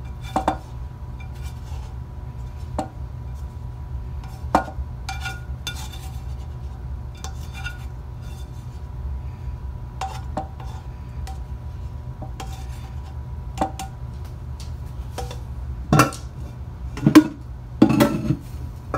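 Slotted spatula scraping and tapping against a frying pan as cooked bacon and sausage crumbles are knocked into a crockpot: scattered light clinks and scrapes, with a few louder clanks near the end.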